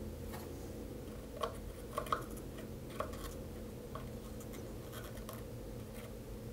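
Faint scratching and a few light ticks of a soldering iron tip working against the metal back of a guitar volume potentiometer as ground wires are soldered to it, the strongest pair of ticks about two seconds in. A steady low hum sits underneath.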